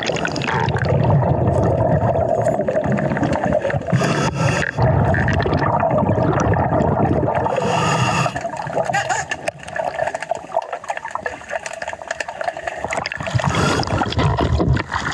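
A scuba diver's breathing heard underwater: exhaled bubbles gurgle and rush out of the regulator in a gust every four or five seconds, over a steady muffled water rush.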